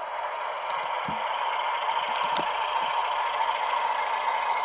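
HO-scale ALCO C628 model locomotive's Tsunami sound decoder playing a diesel engine sound through the model's small speaker as it runs, growing slightly louder, with a few scattered clicks.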